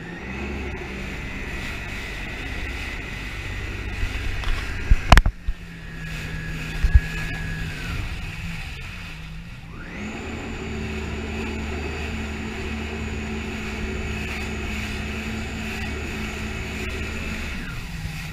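Yamaha WaveRunner personal watercraft running under throttle, its engine whine holding steady, then easing off about eight seconds in and rising again at about ten seconds as the throttle opens, then dropping near the end. Two loud thumps come about five and seven seconds in.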